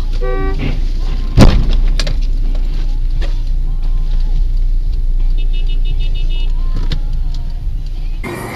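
Car collision heard from inside a vehicle: a single loud bang about a second and a half in, with a smaller knock just after, over steady engine and road rumble. A short falling run of beeps comes just before the bang, and a series of high beeps sounds near the middle.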